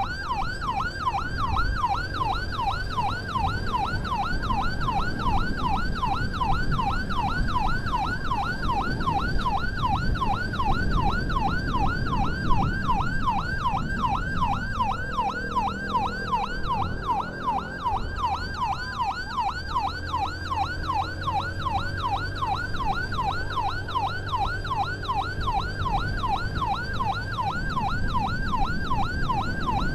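Ambulance siren on a fast yelp, its wail sweeping up and down about three times a second and telling traffic to give way, over the steady low rumble of the vehicle on the road.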